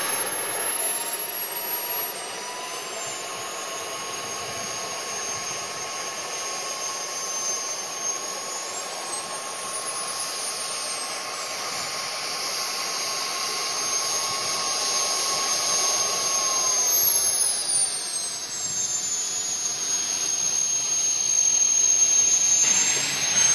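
Small turbine engines of radio-controlled F-15 and F-22 model jets running at low power on the ground, a steady high whine with pitches that drift up and down as the throttle moves. One whine falls away about two-thirds of the way through as an engine spools down.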